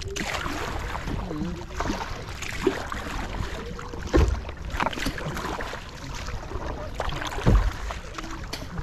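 Kayak paddle strokes: the blades of a double-bladed paddle dipping and splashing into the sea, alternating sides, over a steady rush of wind and water, with a couple of dull knocks about four and seven and a half seconds in.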